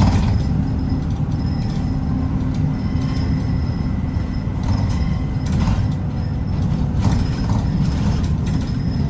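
Inside a city bus on the move: a steady low rumble of the engine and road, with a few short clicks and rattles from the bus's fittings.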